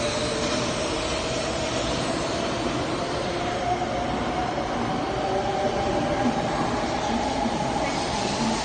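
Taiwan High Speed Rail 700T train pulling out of the station and accelerating past. Its electric traction drive gives a whine that climbs slowly in pitch over steady rolling and air noise.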